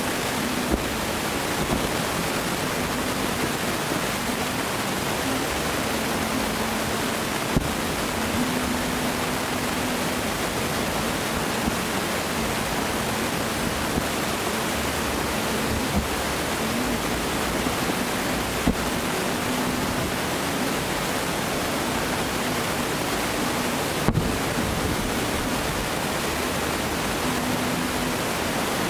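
Distant fireworks display: a steady rushing hiss with a few faint thumps from shells bursting far off, about four of them.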